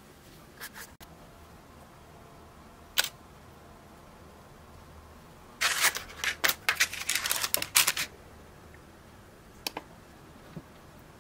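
Paper baking cases crinkling and rustling for about two seconds as they are handled. Before this come a sharp click and a few light taps, and after it two small taps as a case is set on a kitchen scale.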